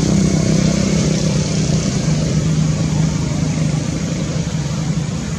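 A motor engine running steadily with a low hum, its pitch dropping slightly about halfway through.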